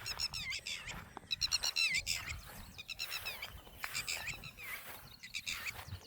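Small songbirds singing: runs of quick chirps and sliding trill notes, phrase after phrase, loudest about a second and a half in.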